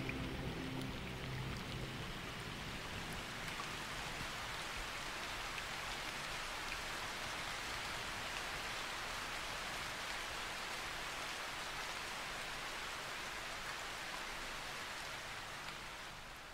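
Steady rain falling on shallow marsh water. The tail of background music fades out in the first second.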